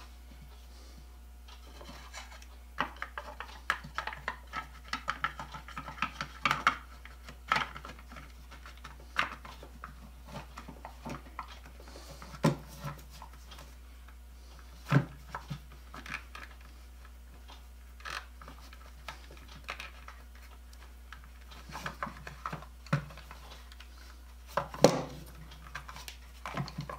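Irregular clicks, taps and rubbing of plastic and wire as the new cord's wires are tucked into a Black & Decker 1/4-inch drill and its black handle is worked onto the metal motor housing, with a few sharper knocks as the parts seat.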